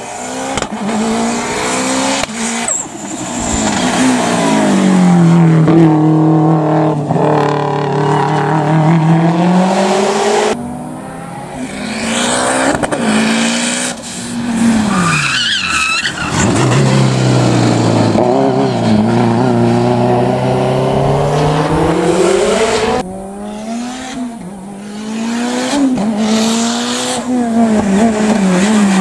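Hillclimb race cars running hard up the course, engines revving up and down again and again, with the sound dropping away briefly twice. A high wavering squeal about halfway through, likely tyres sliding.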